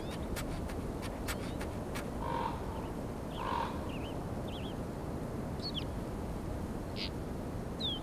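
Outdoor wildlife ambience under a steady low rumble: scattered light ticks in the first couple of seconds, then two hoarse bird calls about a second apart, followed by several short, high small-bird chirps and whistles.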